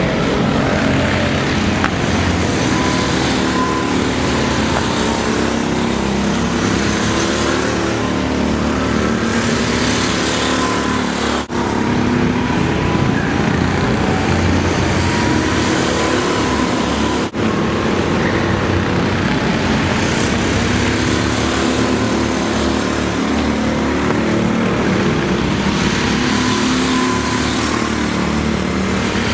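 Go-kart engines running on a track, their pitch rising and falling as the karts speed up and slow down, with two very brief gaps about 11 and 17 seconds in.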